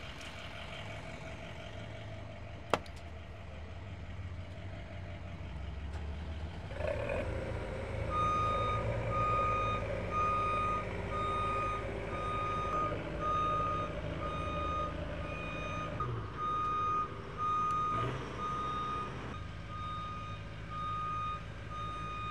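A vehicle's reversing alarm beeping over and over above a running engine. The engine grows louder about seven seconds in, and the beeping starts just after. There is a single sharp knock about three seconds in.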